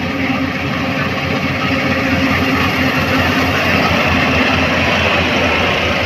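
Rice combine harvester running under load while cutting and threshing: a steady engine drone with dense mechanical noise over it, swelling a little in the middle.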